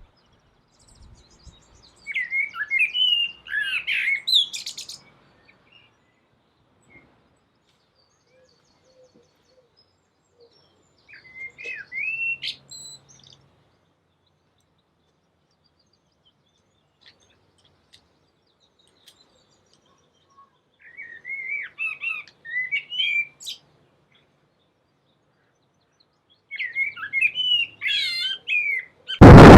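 A songbird singing in four short bouts of quick, twisting chirps, with silences between them. Just before the end, a sudden very loud, full noise cuts in.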